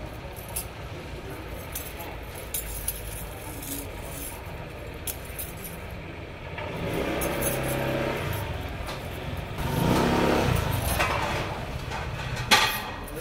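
Small bell on a feather wand cat toy jingling in short shakes as the toy is flicked about, over a steady low background hum. A louder pitched hum swells and fades from about seven to eleven seconds in.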